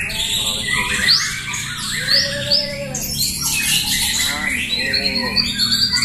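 Several white-rumped shamas (murai batu) singing at once in a contest, a dense, unbroken chorus of overlapping whistles, quick rising sweeps and harsh notes.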